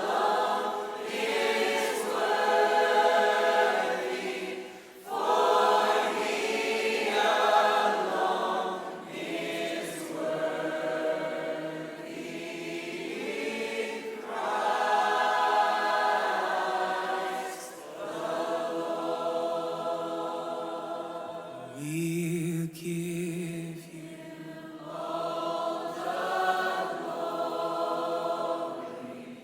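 A choir singing a slow hymn in long, held phrases, with short breaks between them.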